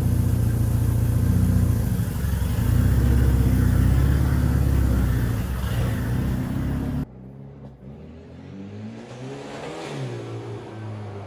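Turbocharged Nissan Datsun 720 pickup's engine running loudly under way. About seven seconds in, it cuts suddenly to a quieter engine sound whose pitch rises and falls as it revs.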